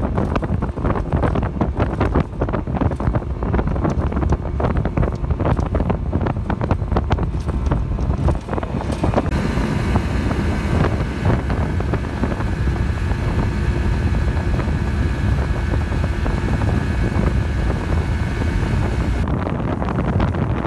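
Wind buffeting a cell phone's microphone on a boat, a loud rough rumble. From about nine seconds in until near the end, a faint steady whine of several tones runs beneath it.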